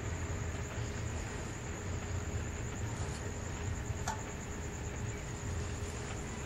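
Small single-cylinder engine of a portable generator running steadily on HHO gas fed in at the carburetor spacer, a continuous low rumble with a faint steady tone over it. A brief click about four seconds in.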